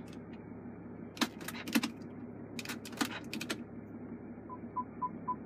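A run of sharp clicks from the car's controls being worked, then, about four and a half seconds in, the BMW X5's parking sensor warning starts: a high beep repeating evenly about four times a second, as reverse is engaged and the parking sensors and camera come on.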